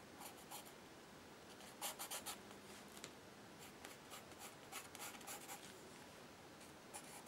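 Soft black charcoal pencil scratching faintly across paint-coated paper, in several short runs of quick strokes.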